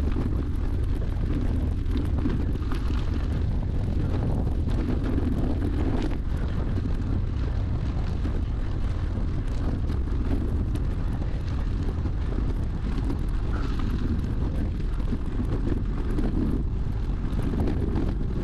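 Wind rushing over the microphone of a GoPro action camera on the move, with the rolling noise of travel along a gravel trail: a steady, low rumble.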